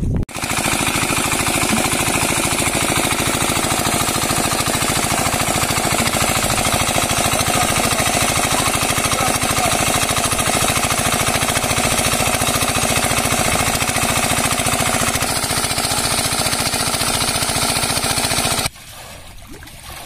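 Small engine-driven water pump running steadily with a fast, even beat while it drains water from a flooded field; the sound cuts off abruptly near the end.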